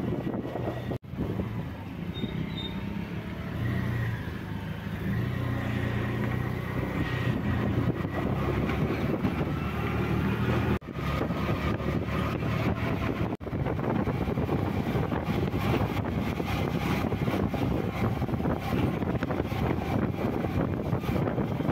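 A motor vehicle driving along a wet road: steady engine hum with tyre and road noise. The sound cuts out briefly three times.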